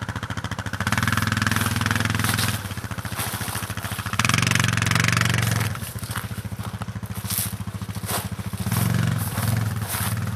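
ATV engine running under load, its revs surging and easing back about three times as the throttle is worked on a steep climb.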